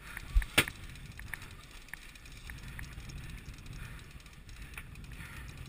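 A low thud and then a sharp knock against a small boat's hull about half a second in, followed by scattered light clicks and rattles over steady wind and water noise.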